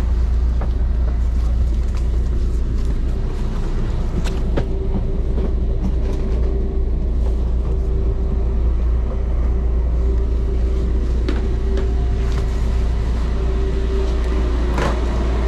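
Steady low rumble with a constant hum from a stopped electric express train's onboard equipment, heard inside the carriage and at its door. A few light clicks and knocks from passengers' bags and footsteps come through it.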